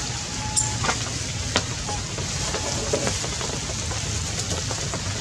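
Steady rain falling, an even hiss, with a few faint ticks.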